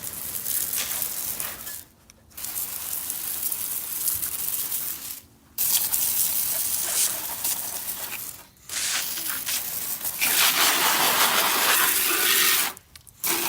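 Liquid spraying from a nozzle as a steady hiss, in four long bursts with brief stops between them; the last burst is the loudest.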